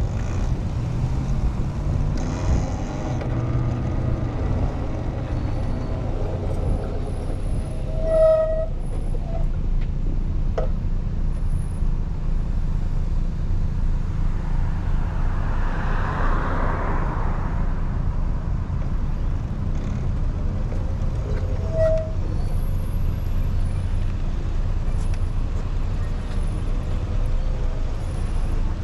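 Steady low rumble of wind and road noise from riding a Talaria Sting R MX4 electric dirt bike in traffic. A vehicle swells past about halfway through, and a short beep sounds twice, about a third of the way in and again later.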